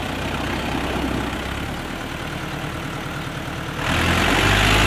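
New Holland 640S tractor's diesel engine running steadily, then growing louder about four seconds in, with a harsher, higher rush of noise added.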